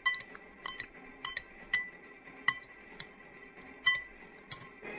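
Metal spoon clinking and scraping against a ceramic bowl while scooping balot: about a dozen sharp clinks, each ringing briefly, at an uneven pace.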